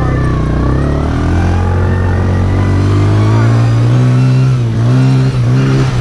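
Arctic Cat four-wheeler's engine running as it is ridden. Its pitch climbs about a second in, then dips and picks up again twice near the end as the throttle is eased off and reopened.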